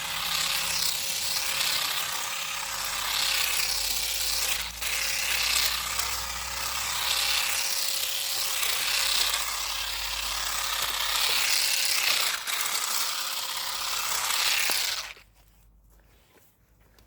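Parkside PGSA 4 A2 cordless grass and hedge shears running, their reciprocating blades cutting through ivy with a steady buzz. The motor stops suddenly near the end.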